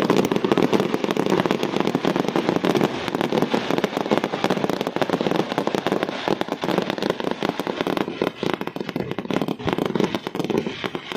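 Massed fireworks going off in a dense, unbroken barrage of bangs and crackles, many shells bursting at once.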